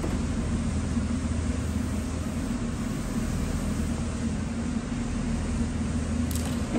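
Steady hum and rush of air from the mobile spray booth's extraction blower drawing air through the filter bank. A brief click comes near the end.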